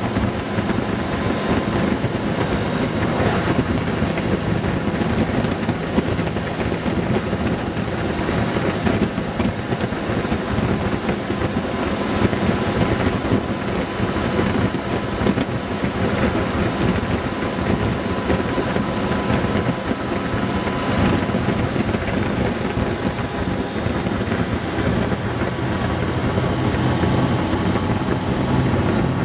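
Honda Gold Wing 1800's flat-six engine running steadily at cruising speed, with wind rushing over the microphone.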